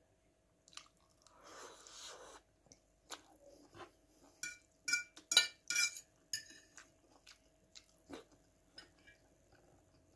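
Close-miked eating: wet chewing with sharp mouth clicks and smacks, loudest in a quick cluster about halfway through, mixed with a metal fork clinking and scraping on a porcelain plate. There is a short hiss about a second in.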